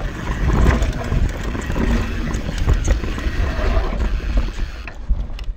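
YT Tues downhill mountain bike rolling fast down a dirt trail: tyres on loose dirt and a steady run of knocks and rattles from the chain, frame and suspension over bumps. It gets quieter near the end.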